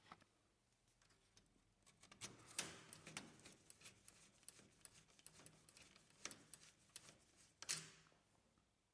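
Faint, scattered clicks and ticks of a screwdriver turning a screw into a laser printer's sheet-metal frame. The clicks start about two seconds in and are loudest at about two and a half seconds and again near the end.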